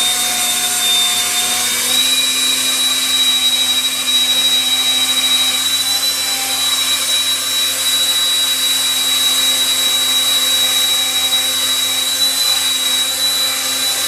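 Cordless drill running steadily with a wood drill bit boring into a wooden chess pawn: a continuous motor whine that rises slightly in pitch about two seconds in.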